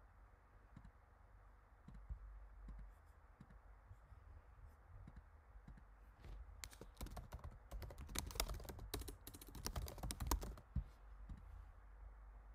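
Typing on a computer keyboard: a few scattered clicks, then a quick run of keystrokes lasting about four seconds in the second half.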